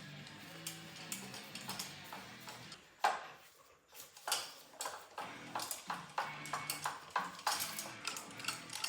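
Background music, and from about three seconds in a run of sharp metallic clinks and taps of hand tools working the oil pan loose from an engine block.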